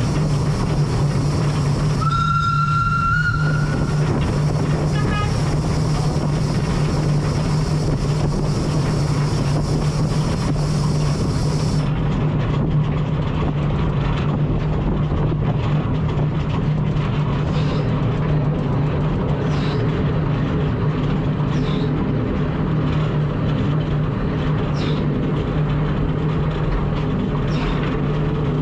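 Lucie No. 8, an 1890 Cockerill steam tram locomotive, running along tram track, heard from its cab as a steady low rumble. About two seconds in, its whistle sounds once for about two seconds on a single slightly rising note.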